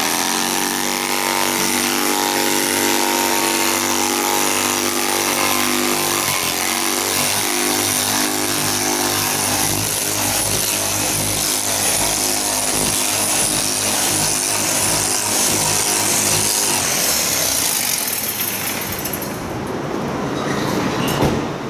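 Power windshield extractor tool with a flat blade, running steadily as it saws back and forth through the sealant that holds the windshield in. It stops near the end.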